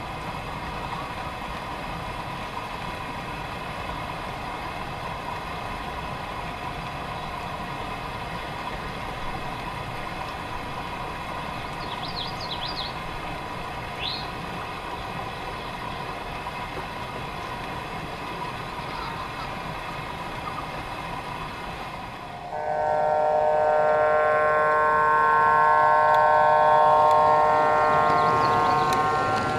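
O gauge model train running with its digital sound system: a steady hum and rolling rumble, with a few faint chirps about halfway through. About three-quarters of the way in, a loud multi-note diesel air horn from the locomotive's onboard sound starts suddenly and is held for several seconds.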